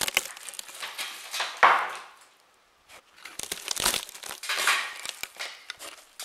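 Dry insulation and crumbling ceiling debris being pulled apart by a gloved hand between the joists: irregular crackling and tearing, with a loud crunch about one and a half seconds in and a short pause just after.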